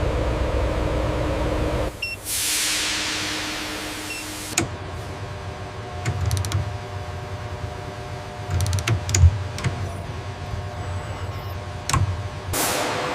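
Factory machinery: a steady low hum, then a burst of hissing air that falls away over about two seconds, followed by scattered clicks and low knocks, and a second hiss starting near the end.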